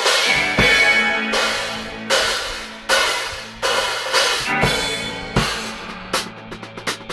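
Live drum kit playing hard, with a series of crash cymbal hits that each ring out, and a quick run of drum hits near the end, over a bass guitar holding low notes.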